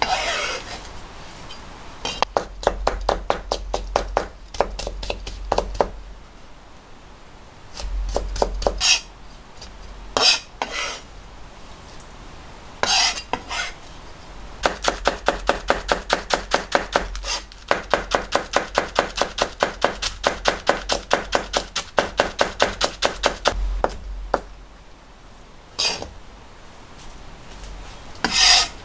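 Kitchen knife chopping vegetables on a plastic cutting board in runs of quick, even strokes, about five a second. Between runs there are a few short scrapes as the blade sweeps the cut pieces across the board.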